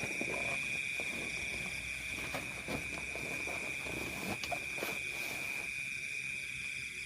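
Steady high-pitched chorus of night insects, with irregular lower rustling and clicking sounds over the first five seconds or so.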